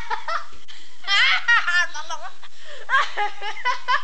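Two women laughing hard in high-pitched fits, with a short lull a little past halfway.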